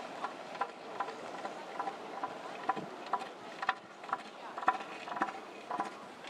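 Northern elephant seal bull giving its threat call: a rhythmic train of short pulses, about two a second, aimed at a smaller rival male.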